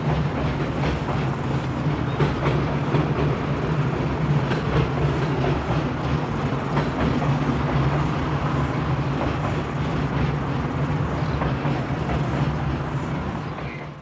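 Freight train wagons rolling across a low rail bridge, with a steady low rumble and a rapid, uneven clatter of wheels clicking over the rail joints.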